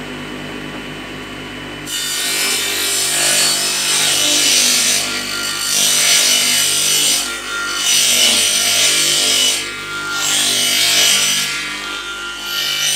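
Bench table saw running, then from about two seconds in ripping the tongue off a long softwood tongue-and-groove cladding board. The cutting noise eases off briefly a few times as the board is pushed on through the blade.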